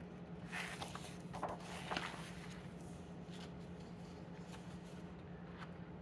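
Paper catalog pages rustling as a page is turned and smoothed flat, a few soft rustles about one to two seconds in, over a steady low hum.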